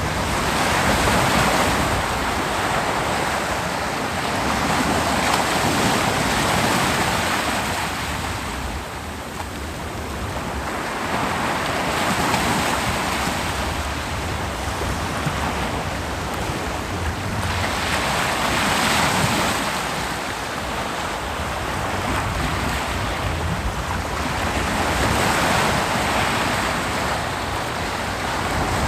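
Ocean waves breaking on a beach: a continuous surf wash that swells and fades as each wave comes in, about every six seconds, with some wind in the background.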